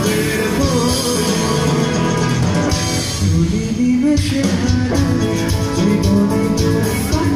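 A rock band playing live through the stage PA, with electric guitars over drums, heard from the audience.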